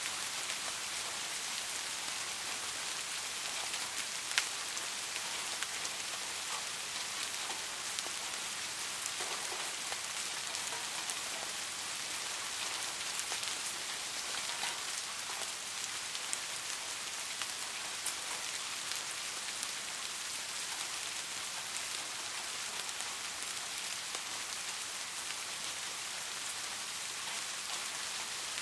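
Steady rain falling: an even hiss with scattered sharper clicks of individual drops, one louder click about four seconds in.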